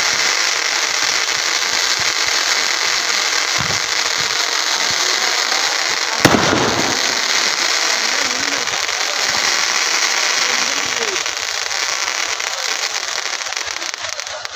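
Fireworks going off in a dense, continuous crackling hiss, with one sharp, loud bang about six seconds in.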